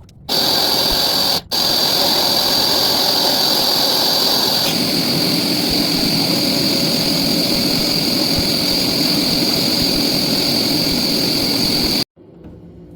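Carpet cleaner's suction motor running with a steady high whine. It starts just after the opening, cuts out for a moment about a second and a half in, and stops suddenly near the end. About five seconds in, the sound turns lower and fuller.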